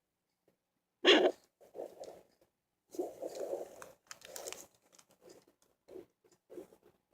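Pocket fetal Doppler's loudspeaker: a loud crackling scrape as the probe slides over skin, then a run of repeated whooshing pulses picked up from the user's own heartbeat rather than a baby's.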